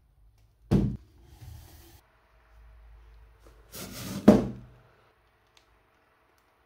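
Cardboard model-kit box being handled on a table: two dull thumps about three and a half seconds apart, the second the louder, with light rustling between them.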